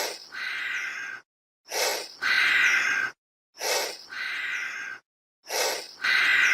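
An animal call repeated four times, about every two seconds: each time a short breathy gasp followed by a longer, steady higher-pitched call, cut off abruptly into dead silence as in an edited loop.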